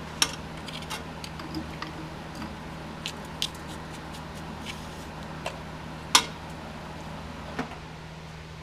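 Smithy Granite combination lathe running with a steady hum as a tool slowly cuts a groove into a spinning steel part. Scattered sharp clicks and ticks punctuate the cut, the loudest about six seconds in.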